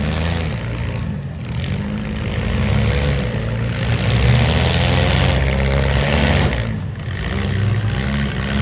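Compact-car engines in a demolition derby running and revving, their notes rising and falling as the cars manoeuvre.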